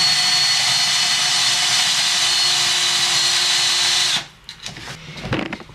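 Small handheld electric power tool running at a steady high whine, then switched off about four seconds in, followed by a few light knocks.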